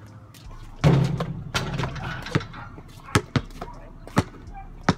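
Basketball bouncing, single bounces at uneven intervals of about a second, with a louder, longer impact about a second in.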